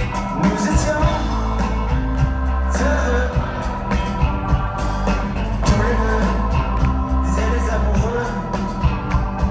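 A rock band playing live, heard from the audience: electric guitar, a heavy steady bass and drum hits under a singing voice.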